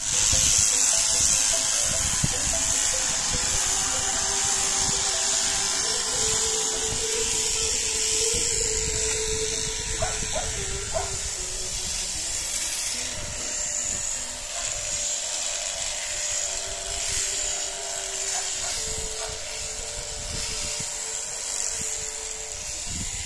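Electric sheep shears running steadily as they clip through a sheep's fleece. The motor's hum shifts slightly in pitch under changing load, over a constant high hiss from the cutter.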